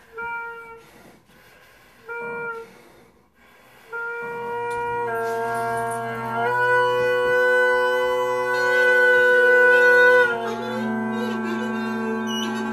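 Bagpipe: two short chanter notes, then about four seconds in the bag fills and the drones come in with a steady low hum while the chanter plays a tune over them.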